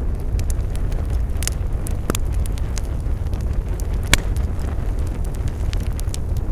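Campfire crackling, with frequent small sharp snaps and a louder pop about four seconds in, over a steady low rumble.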